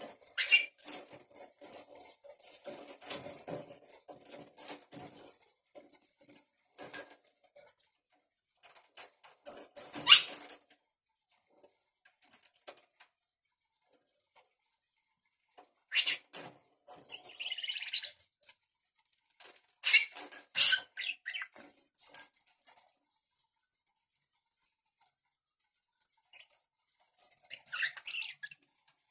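Budgerigar chattering and chirping in bursts, mixed with small clicks and the jingle of a little bell on the hanging plastic toy it is playing with.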